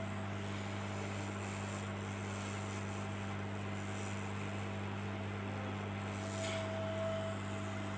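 Hot air rework gun blowing steadily with a low hum while heating a diode on an LCD panel's board to desolder it; a faint higher whistle swells briefly about six seconds in.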